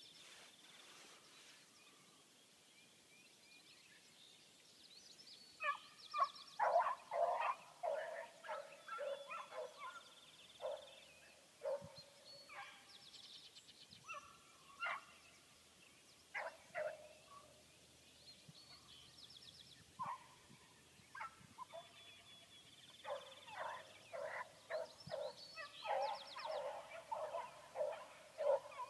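A pack of beagles baying: bursts of repeated short bays that start about six seconds in, thin out, then pick up again in a dense run near the end.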